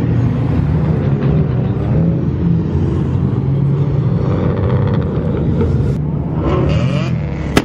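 Several cars' engines running and revving as they accelerate away across a parking lot, with pitch rising and falling a few times. A single sharp click comes at the very end.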